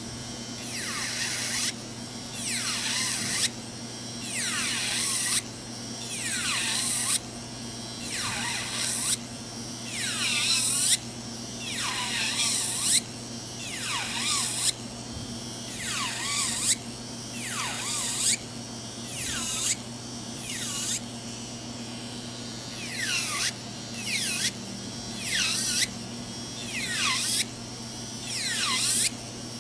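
Electric nail drill (e-file) with a barrel bit grinding gel polish and decorations off a fingernail, in repeated passes about a second long every second or two. Each pass is a high grinding whine that drops in pitch as the bit bears on the nail, over a steady low motor hum.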